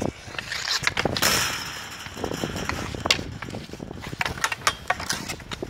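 Hockey sticks clacking against each other and striking the ball in a scramble in front of the net: a run of sharp cracks, the loudest about three seconds in, with a longer scrape lasting about a second and a half, starting about a second in.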